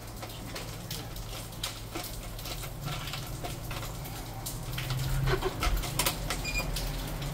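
Scattered light clicks and rustles from a gloved hand working the switches on a coach's driver dashboard, over a steady low hum. A short faint beep comes about six and a half seconds in.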